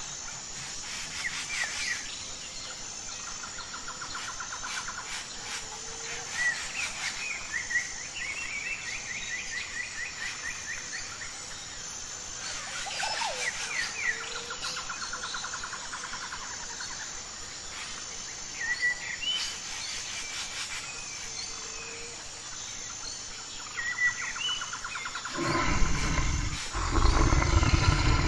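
Birds chirping and calling in short trills over a steady outdoor background. Near the end, loud deep growls and roars break in, as from brown bears sparring in water.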